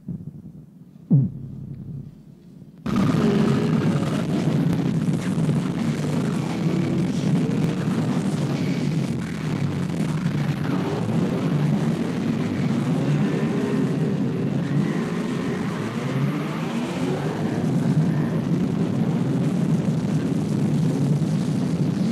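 Harsh noise: a low hum with one deep thud falling in pitch about a second in. Near three seconds in, a dense wall of distorted noise cuts in abruptly and runs on, with wavering tones bending through it.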